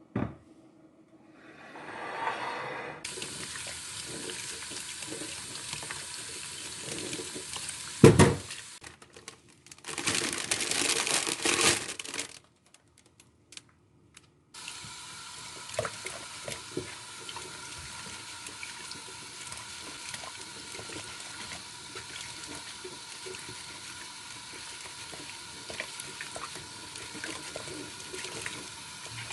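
Water running from a kitchen tap into a sink, with a sharp knock about eight seconds in. The running water breaks off for a couple of seconds around the middle, then runs on steadily.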